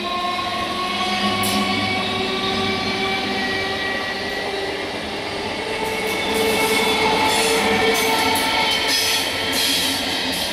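Indian Railways electric multiple unit (EMU) suburban train passing close by, its electric traction equipment buzzing in several steady tones over the rumble of the coaches. Wheels clatter over rail joints, most busily in the second half.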